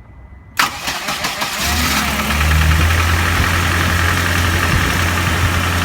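GAZelle's ZMZ-405 four-cylinder petrol engine being started from cold: the starter cranks about half a second in, the engine catches about a second later, rises briefly and settles into a steady idle. This is the cold-engine knocking and noise that the owners are trying to diagnose.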